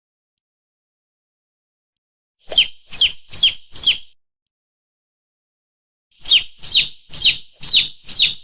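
Hunting lure call (pikat) for mongooses and monitor lizards: shrill, bird-like chirps, each sliding down in pitch. They come in a quick run of four about two and a half seconds in and a run of five near the end, with dead silence between the runs.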